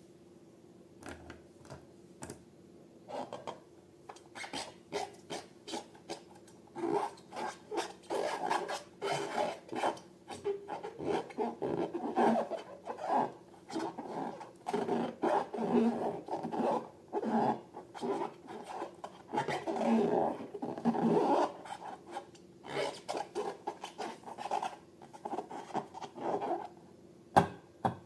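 Slime and balloons being handled by hand: irregular rubbing and squishing strokes that come faster and denser for a long middle stretch, then thin out near the end.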